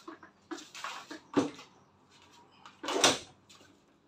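Handling noises from equipment being moved about: a series of short rustles, scrapes and knocks, with a sharper knock about a second and a half in and the loudest scrape or clatter about three seconds in.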